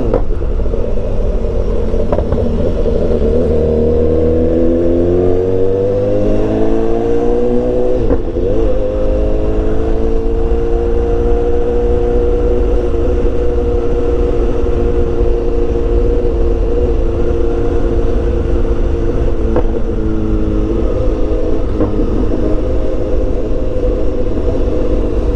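BMW S1000XR's inline-four engine running through a full exhaust system, heard from the rider's seat while riding: the engine note rises for several seconds, breaks briefly about eight seconds in, then holds at steady revs. Wind noise runs underneath.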